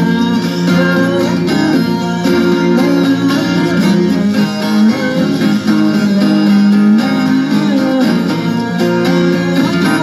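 Background music led by guitar, playing steadily throughout.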